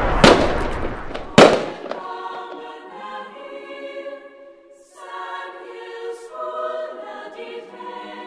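Two firework bangs with crackle in the first second and a half, the second the loudest, then slow music with long held chords.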